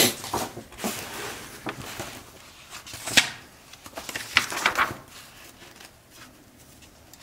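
Paper pages of a printed booklet being handled and turned: several crisp rustles and flicks, the sharpest about three seconds in and a quick cluster a second later, then only faint handling.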